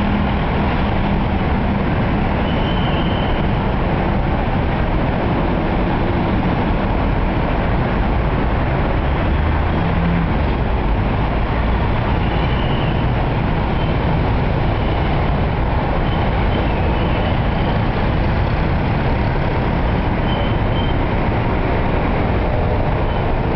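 Steady traffic noise of a busy city street: car and motorbike engines and tyres blending into a constant din, with a few short, faint high-pitched tones over it.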